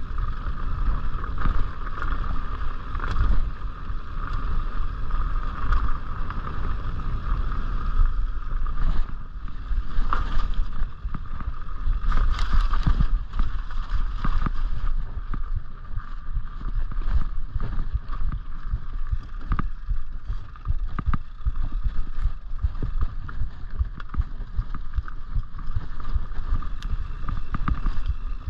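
Mountain bike rolling down a dirt singletrack: wind rushing over the microphone and tyre rumble, broken by frequent clicks and rattles from the bike over rocks and roots.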